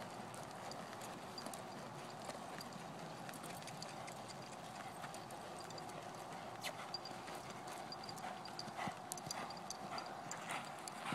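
Soft, faint hoofbeats of a ridden horse moving over a sand arena, becoming a more distinct run of rhythmic clicks in the second half.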